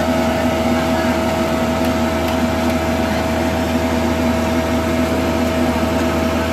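Cupola furnace's air blower running with a steady drone and a constant whine.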